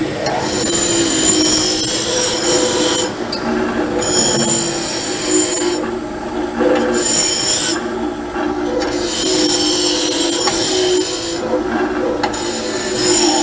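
Disc sander motor running steadily while a metal tube is pressed against the spinning abrasive disc in about five passes, each a high squealing grind with short pauses between. Metal is being ground off a part that sits a little high, to bring it level.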